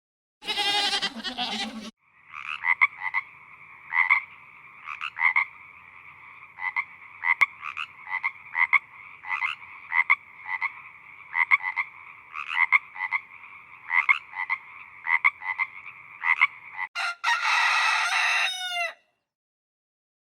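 A chorus of frogs croaking: a steady trilling din with sharp calls repeating about twice a second, lasting some fifteen seconds. It is bracketed by a short bleat at the start and a rooster crowing near the end.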